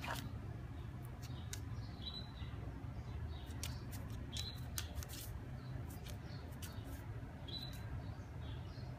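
Tibetan Mastiff puppies sniffing and licking at a marble floor: scattered small clicks, with short high chirps now and then over a low steady hum.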